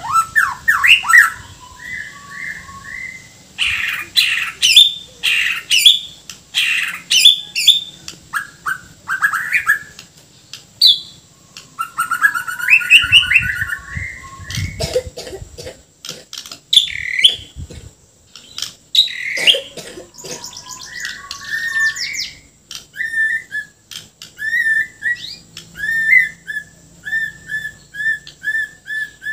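Caged Bornean white-rumped shama singing loudly, a fast, varied song of whistles and chattering phrases with harsh rasping notes mixed in. Near the end it settles into a run of short repeated notes, about two a second.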